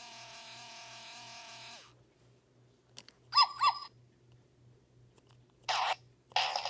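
Black 2005 Rock iDog Pup robot dog toy playing through its small speaker: the tail of its electronic rock riff fades out with a downward slide, then after a click two short electronic yips or barks about three and a half seconds in, the loudest sounds here. Near the end a brief noisy burst comes, and the toy's rock music starts up again.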